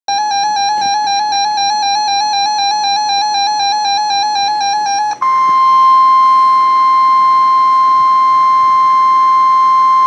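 NOAA weather radio sounding a warning alert through its small speaker: first a loud, pulsing, warbling alarm tone for about five seconds, then, after a brief break, the single steady 1050 Hz warning alarm tone that precedes a National Weather Service warning message.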